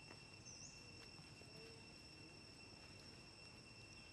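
Faint, steady high-pitched drone of insects, several unbroken tones held level throughout, with a brief chirp about half a second in.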